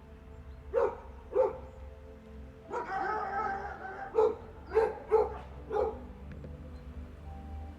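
Dog barking: two sharp barks, then a longer drawn-out call, then four more quick barks, over soft background music.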